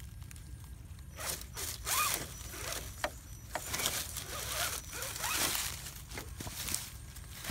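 Electric RC rock crawler's motor and gears whirring in short, irregular bursts as it crawls over rocks, with a brief rising whine a couple of times, mixed with scraping and crunching over stones and dry leaves.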